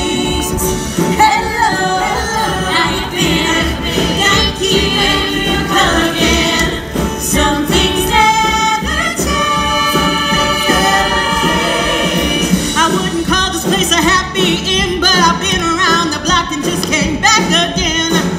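Live stage-musical number: singers over a band playing with a steady beat.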